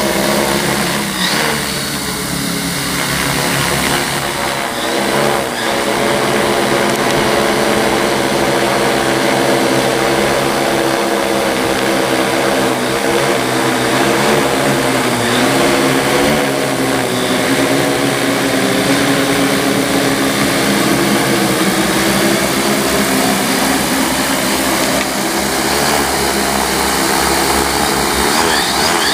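Large six-rotor agricultural spraying drone with 30-inch propellers in flight, its rotors giving a steady drone whose pitch wavers up and down as the motors adjust.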